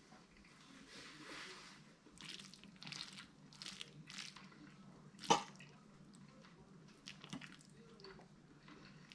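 Faint wet squishing of noodles and light clicks as a fork and chopsticks pick through a plate of stir-fried noodles, with one sharper click about five seconds in.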